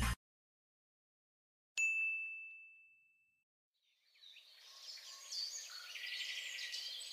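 A single clear ding about two seconds in, ringing out and fading over about a second and a half. After a silent gap, birds start chirping and calling at about four seconds.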